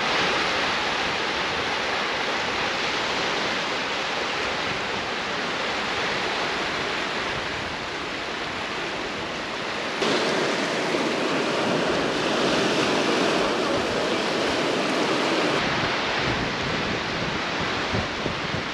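Lake waves washing onto a sandy beach, with wind over the microphone. It is a steady wash of noise that steps up suddenly about ten seconds in.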